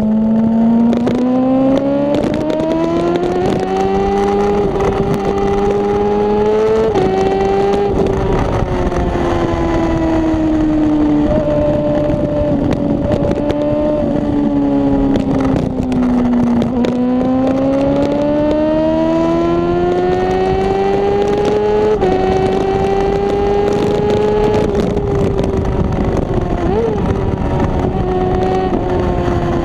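Inline-four engine of a 2009 Honda CBR600RR with a Two Brothers aftermarket exhaust, under way: the note climbs as it accelerates, drops abruptly a few times as it shifts up, sags as the throttle eases, then climbs again. Wind rush runs underneath.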